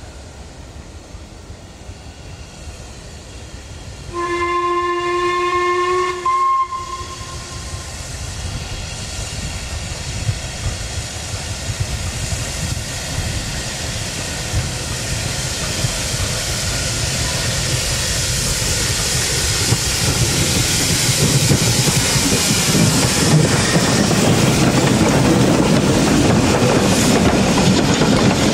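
Steam locomotive whistle sounding a long blast and then a brief second one. After it, the train approaches, its running and rail noise growing steadily louder.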